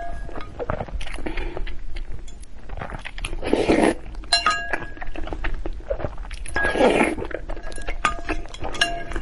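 Eating utensils clinking against a bowl in short ringing taps, twice in clusters, between two louder noisy swells of eating sounds at the microphone.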